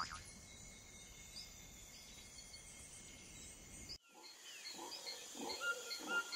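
Faint forest ambience with small high chirps repeating about twice a second. About four seconds in the background cuts abruptly, and a series of faint, short rising animal calls follows.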